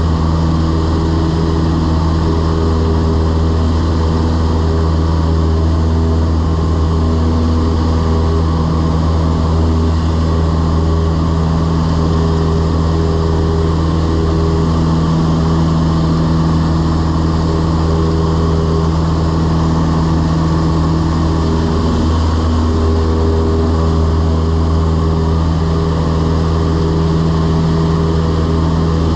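Cessna 172's piston engine and propeller droning steadily in flight, heard from inside the cabin, with a hiss of air over the airframe.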